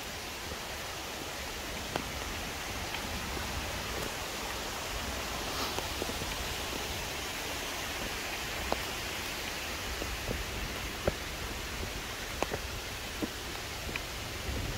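Steady rush of falling water from a mountain waterfall and stream, with scattered single sharp ticks.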